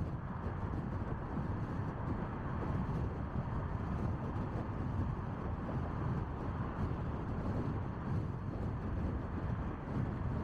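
Steady low rumble of road and wind noise from a car driving on an expressway, even throughout with no engine note or other events standing out.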